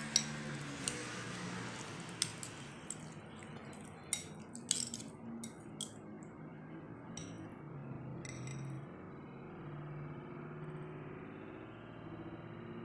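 Metal spoon and metal chopsticks clinking against a ceramic soup bowl as the soup is stirred: a string of sharp, irregular clinks in the first half, then only a couple more.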